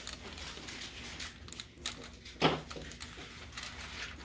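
Light rustling and crinkling of paper and a plastic glue-dot sheet being handled, with scattered small clicks and one louder short knock about two and a half seconds in.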